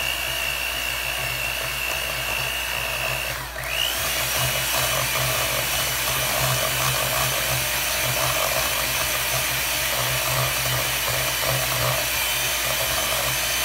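Electric hand mixer running, its beaters whipping an egg-yolk, butter and mayonnaise mixture in a stainless steel bowl, with a steady high motor whine. About three and a half seconds in the whine drops briefly as the mixer slows, then picks back up and runs on.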